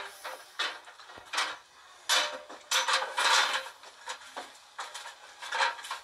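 Workshop work noise: an irregular string of clatters, clinks and knocks of tools and metal being handled, played back through a laptop speaker.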